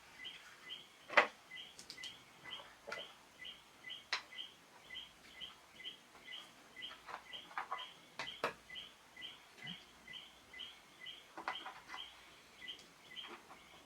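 AAA batteries being fitted into a bathroom scale's battery compartment: a few sharp plastic clicks, the loudest about a second in. Behind them a bird chirps over and over, evenly spaced, a little over two chirps a second.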